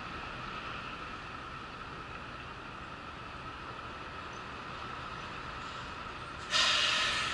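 Steady machinery hum with a faint high whine. About six and a half seconds in, a sudden loud hiss cuts in and fades over about a second.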